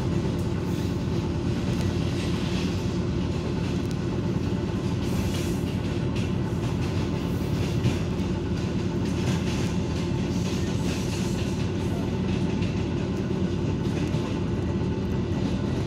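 Steady rumble and rail clatter heard inside an electric commuter train carriage as a freight train runs past close alongside on the next track.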